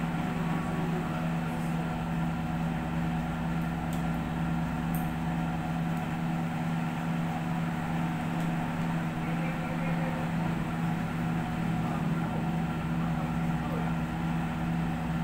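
Steady low machine hum, even throughout, with a couple of faint clicks about four and five seconds in.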